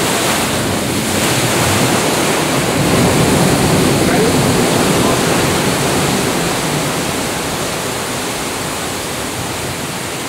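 Sea waves surging and breaking over the rocks below, a dense rushing wash of surf that swells about three seconds in and then slowly eases.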